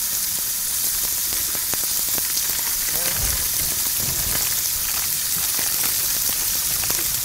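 Food sizzling and frying on a portable tabletop grill: a steady hiss with a few light clicks.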